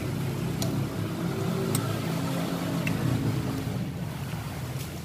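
A steady low engine hum, with a few light clinks of a spoon and fork against a ceramic bowl.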